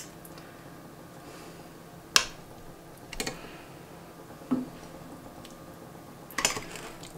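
Several sharp clinks and knocks of a metal utensil against a cast-iron frying pan as stuffed turkey escalopes are set into the sauce. The loudest comes about two seconds in.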